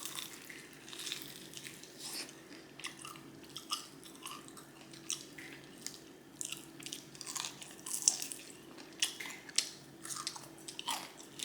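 Close-miked biting and chewing of crispy fried chicken: irregular crunches of the coating between quieter chewing.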